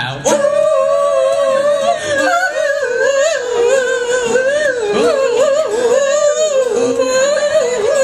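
Wordless singing: a voice holds a long melody without words, sliding and wavering up and down in pitch, over a strummed acoustic guitar.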